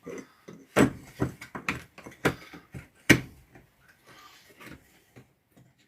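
Irregular clicks and knocks of small angle-grinder parts being handled and fitted together during reassembly. The loudest knock comes about three seconds in.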